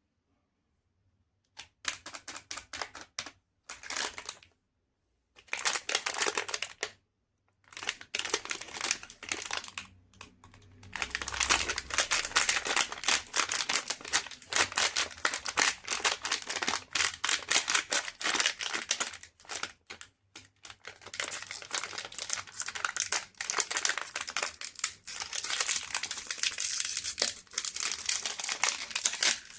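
Chocolate wrapper crinkling and tearing as it is opened. The crackling comes in short bursts at first, then runs almost continuously through the second half.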